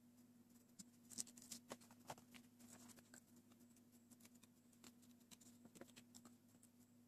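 Faint, scattered light clicks and taps of hands handling the plastic tray and card of a Popin Cookin sushi candy kit on a table, loudest about a second in.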